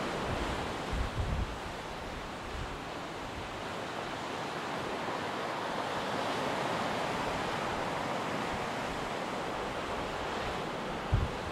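Ocean surf breaking on a sandy beach below, a steady wash of waves. Wind buffets the microphone in short low rumbles about a second in and again near the end.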